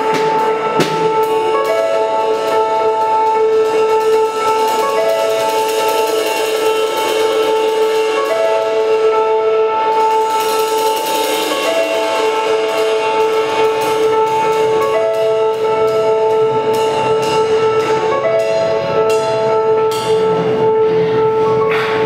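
Live improvised band music: a steady held drone of two sustained tones with short repeated notes stepping in and out above it, over loose drum-kit and cymbal playing.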